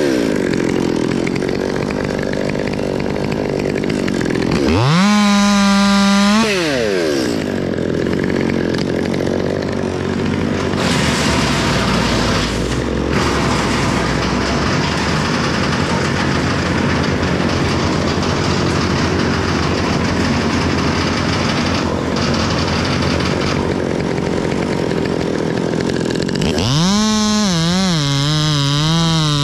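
Two-stroke chainsaw cutting elm wood. The engine revs up sharply to full speed about five seconds in and again near the end, where its pitch wavers. In between it runs under load through the cut.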